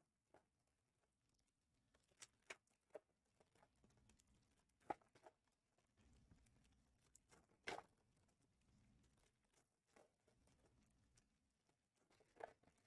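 Near silence broken by a handful of faint, short clicks and taps from trading cards being handled and sorted on a table, the clearest about five seconds in and just before eight seconds.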